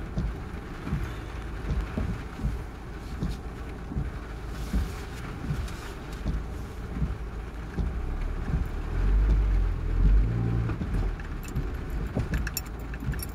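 Car cabin while driving slowly in heavy rain: a steady low rumble of the car on the wet road with rain hitting the car, swelling louder around nine to ten seconds in. A few light clicks come near the end.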